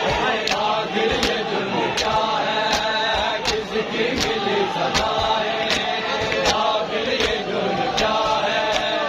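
A crowd of men chanting a noha, a lament, together, over the sharp, even slaps of matam: many open palms striking bare chests in unison, about every three-quarters of a second.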